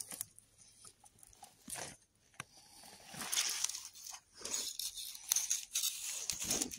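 Dry pine needles and forest-floor litter rustling and crackling as they are disturbed, in irregular bursts that grow busier about halfway through.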